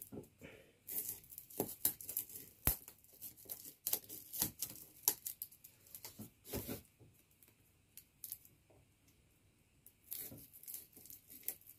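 Sellotape being cut and torn off a taped-down package: irregular tearing and crackling with sharp clicks. It goes quieter for a couple of seconds, then the tearing starts again near the end.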